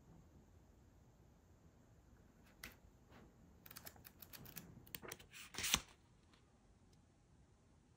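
Hands handling a small black softcover notebook. A single light click comes about a third of the way in, then a quick run of soft clicks and paper rustles as the cover is opened and the pages are flexed, with the sharpest click near the end of the run.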